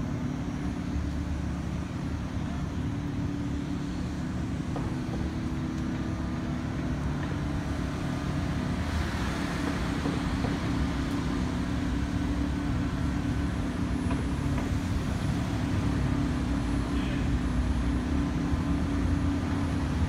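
Street traffic: cars driving by over a steady low engine hum, with a car passing by about halfway through.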